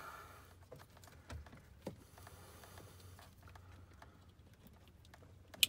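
Faint plastic clicks and handling of wiring-harness plugs, then one sharp click near the end as a connector latches into its socket on the back of the head unit.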